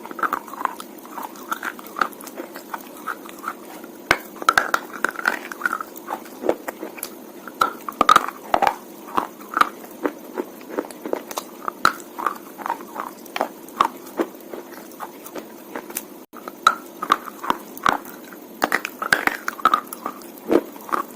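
Wet slate being bitten and chewed: irregular crisp crunches and crackles, a few every second.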